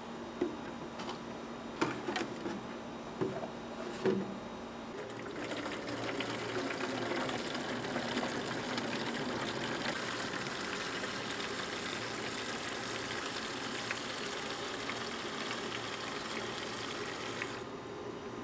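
Water from an outdoor tap running into a plastic watering can, a steady rushing fill that cuts off shortly before the end as the tap is turned shut. A few sharp knocks come in the first four seconds, before the water starts.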